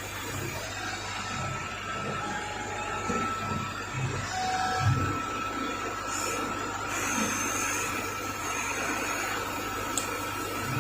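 Motor-driven workshop machine tool running, a steady hum with a thin high whine and a few dull low knocks.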